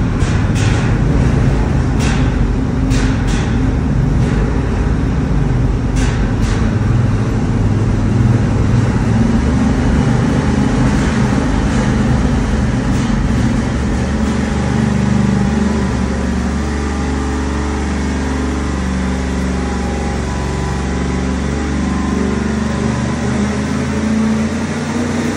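Chrysler 440 cubic-inch marine V8 on an engine dyno, pulling under load through a slow dyno sweep, its pitch rising steadily as the revs climb from about 1,900 toward 3,200 rpm. A few sharp clicks sound in the first several seconds.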